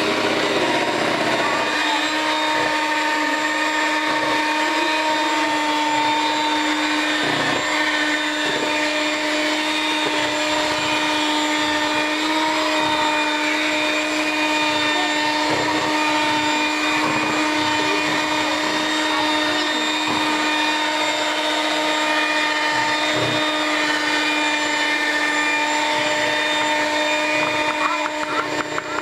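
Electric mixer motor running steadily as it beats batter, with a brief unsteady dip near the end.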